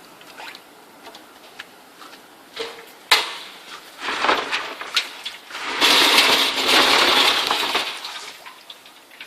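Compressed-air-powered wet/dry industrial vacuum sucking up small hard debris: scattered clinks and rattles, the sharpest about three seconds in, then a loud rush of air hiss about six seconds in that fades near the end.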